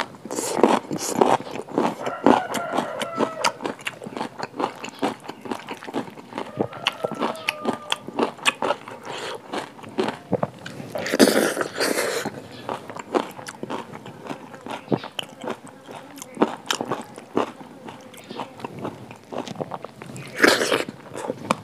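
A person chewing and biting food close to the microphone: wet, crunchy mouth sounds with many sharp clicks, and two louder bursts, one about halfway through and one near the end.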